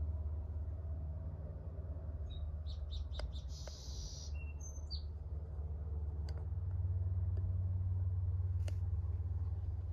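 A steady low hum, with a few short, high, bending bird chirps about two to five seconds in.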